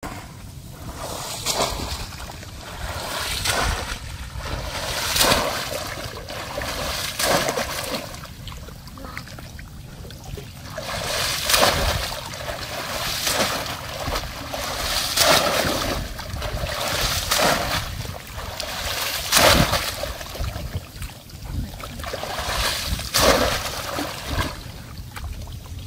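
Hands churning and splashing in shallow, weedy pond water, a splash every two seconds or so.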